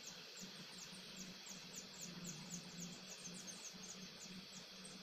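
A house full of day-old broiler chicks peeping: a dense, steady chorus of short, high, falling chirps, over a faint low hum.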